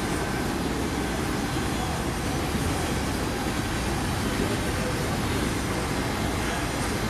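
Steady low rumble of diesel locomotives running with a freight train.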